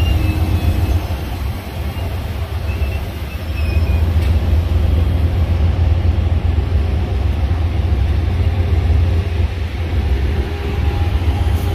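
Train rolling by with a steady low rumble and a couple of faint wheel squeals in the first few seconds.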